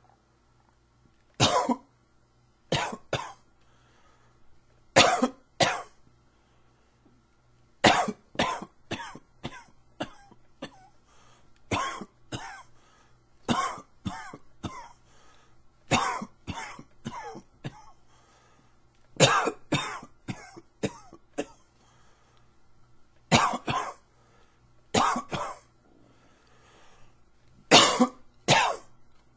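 A man coughing in repeated fits, each one to five harsh coughs, a few seconds apart. It is an allergy cough.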